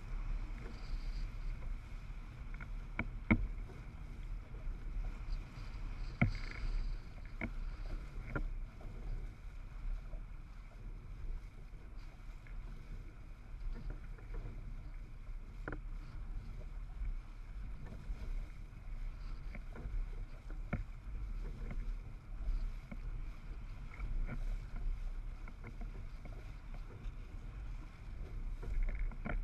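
A windsurf board sailing over chop: a steady deep rumble of wind and water rushing past the board and rig, with a few sharp knocks scattered through it.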